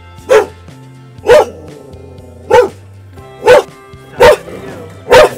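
A dog barking loudly, six single barks about a second apart, over soft background music.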